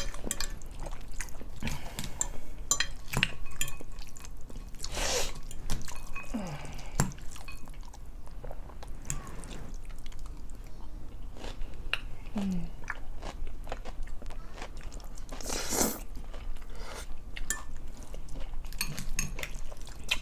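Close-up eating of spaghetti and salad: chewing with many small wet mouth clicks and smacks, with two louder, longer rustling bursts about five seconds in and near sixteen seconds.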